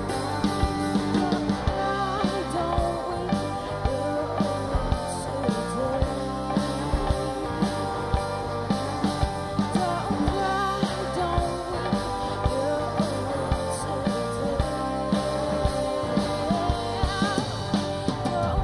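Live rock band playing: drum kit, electric bass, electric guitar and keyboard, with a steady drum beat.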